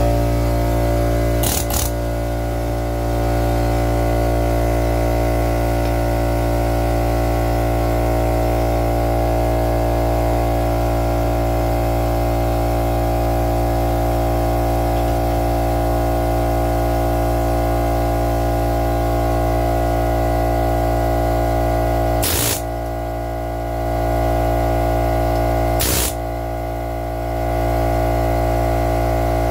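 Air compressor running with a steady, loud mechanical drone. Three brief sharp noises cut through it, one near the start and two near the end.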